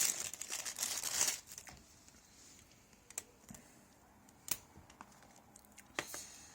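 Plastic packaging crinkling for about the first second and a half as a USB Type-C cable is taken out of its box, then a few scattered light clicks of the cable being handled.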